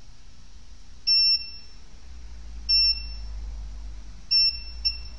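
Multimeter continuity beeper sounding four short, high beeps as the probes are touched to capacitor pads, with the last one very brief. Each beep means the pad being probed is connected to ground.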